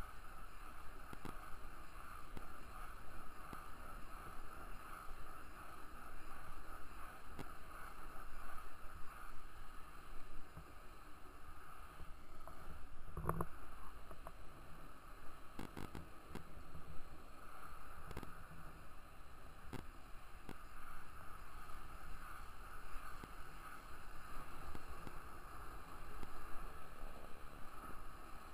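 Small skate wheels rolling over asphalt: a steady rolling hiss, broken by a few sharp knocks, the loudest about halfway through.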